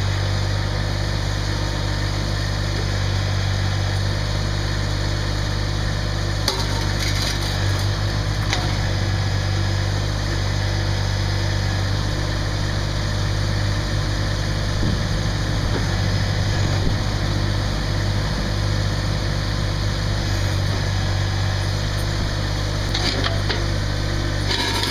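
Massey Ferguson GC2610 sub-compact tractor's diesel engine idling steadily, with a few light clicks and knocks about six and a half and eight and a half seconds in and again near the end.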